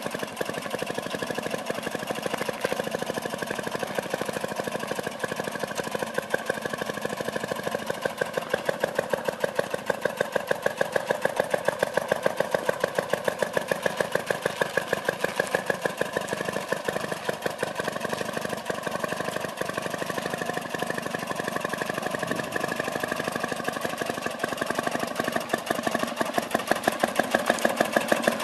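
A 1½ HP John Deere single-cylinder engine on a small John Deere tractor, running steadily with an evenly spaced chugging exhaust beat as the tractor drives along. The beat grows louder near the end.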